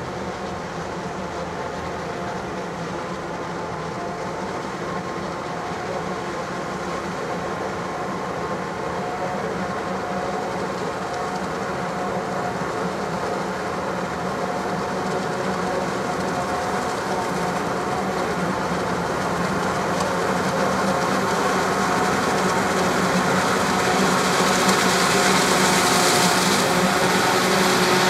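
Claas Jaguar 960 forage harvester chopping corn: a steady machine drone with several held tones, growing steadily louder as the harvester comes closer.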